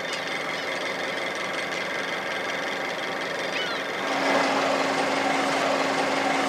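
Fishing boat's engine running steadily at low revs, a constant low hum over wash and wind noise; the hum grows louder about four seconds in.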